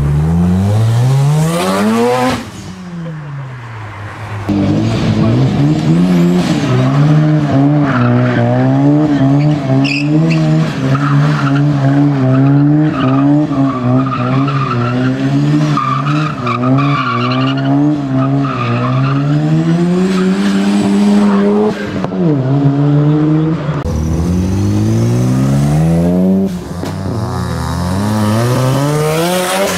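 Mazda RX-7 rotary engines revving hard in a run of short clips. There is a rising rev in the first couple of seconds, then a long stretch held at high revs with a wavering pitch and tyre squeal while the car spins doughnuts. More rising revs follow near the end.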